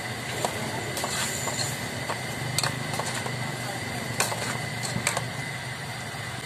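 Metal spoon stirring in an aluminium saucepan of larb, with a scatter of sharp clinks against the pot over a steady low hum.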